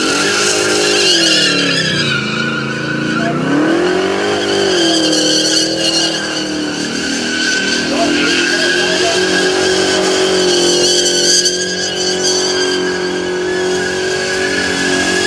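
Holden VP Commodore's 355 stroker V8 held at high revs during a burnout, rear tyres squealing as they spin. The revs dip and climb back twice in the first few seconds, then hold steady.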